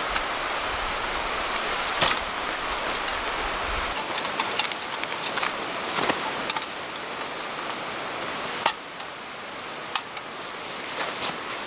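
Steady rushing water noise with scattered sharp clicks and knocks, the loudest about two, six, nine and ten seconds in.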